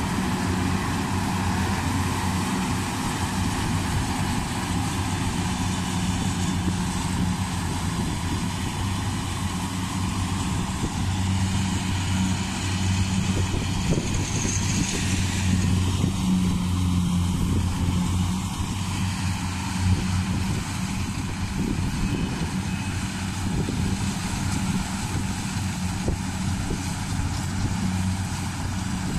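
Yanmar crawler combine harvesters running steadily while harvesting rice: a constant low engine hum with a hiss of machinery over it.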